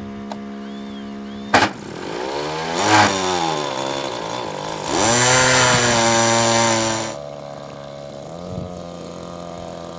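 RC model Messerschmitt Bf 109's engine idling, revved up and down, then run at high throttle for about two seconds before dropping back to idle, with a sharp click about one and a half seconds in.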